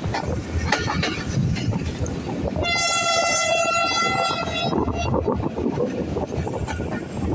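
A moving passenger train's diesel locomotive horn sounds one steady blast of about two seconds, starting a little under three seconds in, where a whistle board calls for the horn. Under it the coaches rumble and clatter along the track.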